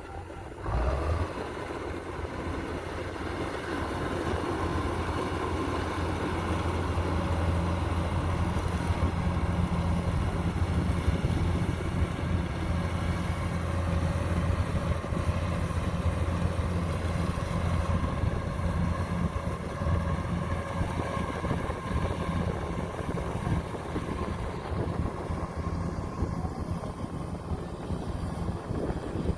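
Kubota DC-105X rice combine harvester running steadily as it cuts and threshes standing rice: a low engine hum under the clatter of the machinery. It gets louder about a second in.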